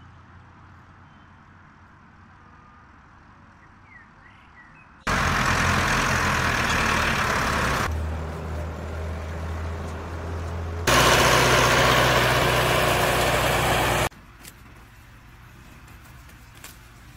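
Farm tractor's engine running steadily as it pulls a disc harrow through ploughed soil. It starts suddenly about five seconds in, changes in level twice and cuts off abruptly near the end. Before and after it there is only faint quiet background with a few short chirps.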